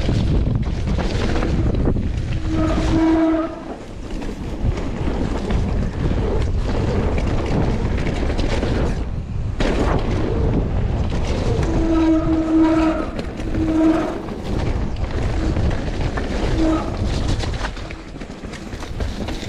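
Wind rushing over an action camera's microphone and knobbly tyres rolling over a bumpy dirt trail on a fast mountain-bike descent, the bike rattling over the bumps. Disc brakes squeal with a steady whistle-like tone a few seconds in and again in a couple of short bursts past the middle.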